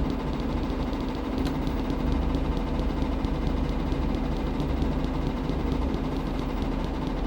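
Washing machine running with a steady mechanical hum.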